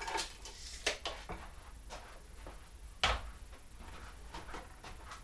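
Scattered light clicks and knocks of a plastic motorcycle fairing and parts being handled, with one sharper knock about three seconds in.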